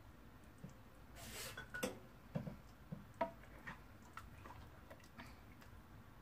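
Metal ladle scooping curry out of an aluminium cooking pot: a short scrape a little after a second in, then a series of faint, irregular clinks and taps of the ladle against the pot.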